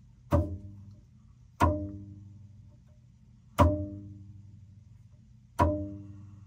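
A tensioned toothed drive belt on a Prusa Core One 3D printer, plucked by finger four times, about two seconds apart. Each pluck rings with a low twang that fades over about a second. The pitch of the twang is the measure of the belt's tension.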